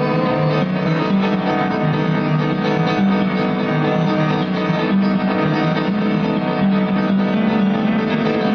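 Instrumental passage of a live band song: guitar with keyboard, played steadily without singing.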